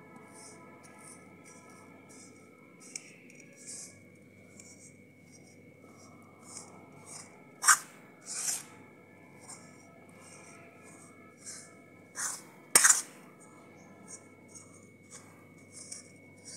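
Steel spoon stirring a dry, crumbly rice-flour and khoa mixture in a kadhai: a run of soft scraping strokes, a few a second. Two sharp clinks of the spoon against the pan, the loudest sounds, come about 8 and 13 seconds in.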